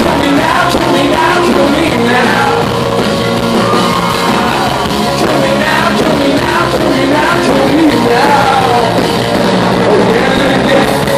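Live rock band playing, with the lead singer singing over drums, bass and guitar, heard loud from among the audience in a club.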